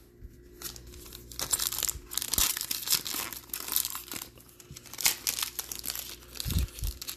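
Foil wrapper of a Prizm football trading-card pack being torn open and crinkled by hand, starting about half a second in as dense, irregular crackling. A soft low bump comes near the end.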